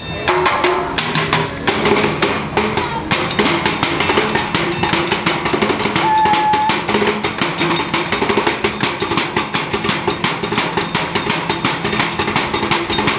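Pipes being hit and door knockers rapped: a dense, continuous clatter of quick metal knocks, with a faint ringing pitch underneath.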